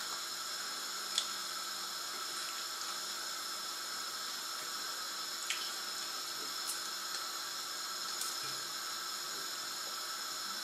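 Steady hiss with a faint high whine running under it, and a few light clicks of a knife cutting a boiled egg on a board.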